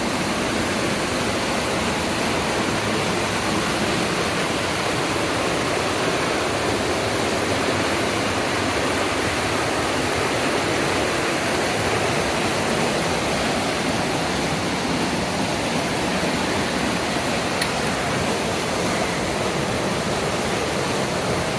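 Steady rush of a river's fast water running through a rocky ravine.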